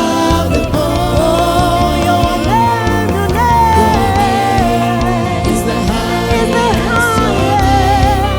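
Gospel worship music: a sung melody over a full band accompaniment, loud and steady throughout.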